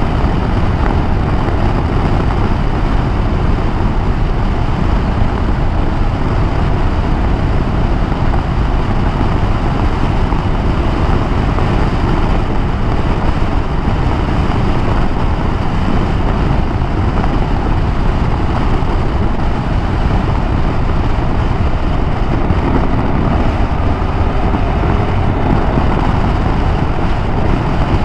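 A KTM 390 Adventure motorcycle being ridden at a steady speed, heard as an even rush of wind on the microphone over road and engine noise, with no breaks.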